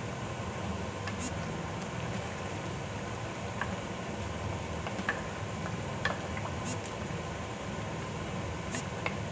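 Wooden spoon stirring a pork and vegetable stew in a metal pot, with a few light knocks of the spoon against the pot over a steady background hum.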